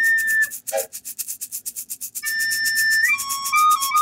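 Music track: a high, flute-like lead melody in held notes over fast, steady ticking percussion. The melody drops out about half a second in, leaving the ticking alone, and comes back a little after two seconds.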